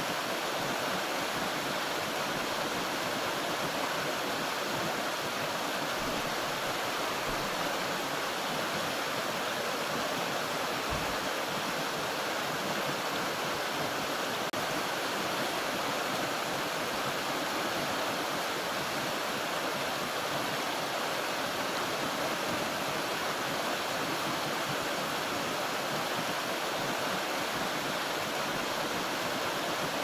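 Shallow stream rushing over rocks in small rapids, with a steady, even sound of splashing water.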